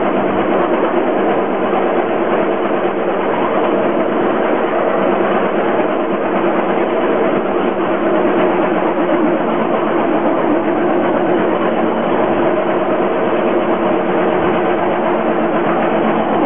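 Engine of a small motorised rail trolley running steadily as it travels along the track, a constant engine drone that neither rises nor falls.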